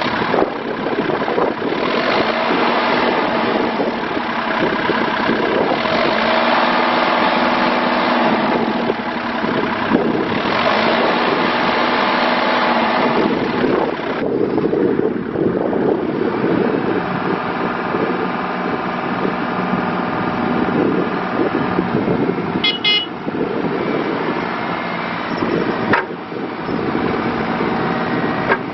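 Kubota U35-4 mini excavator's diesel engine running and working its hydraulics, the engine note and load swelling and easing several times. There is a brief series of high beeps about 23 seconds in.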